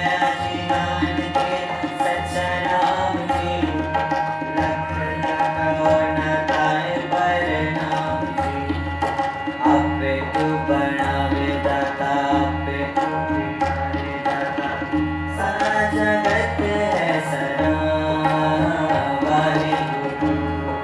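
Sikh kirtan music: a harmonium holding sustained reed chords while a tabla plays a steady rhythm, with deep strokes on the bass drum.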